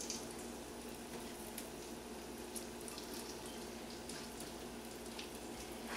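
Breaded pork chops frying in hot oil in a stainless steel skillet: a faint, steady sizzle with scattered small crackles. The oil is only just up to heat, so there is only a little frying noise.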